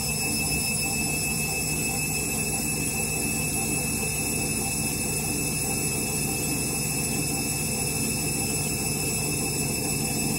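Candy front-loading washing machine running with a steady low hum and a thin, constant high whine.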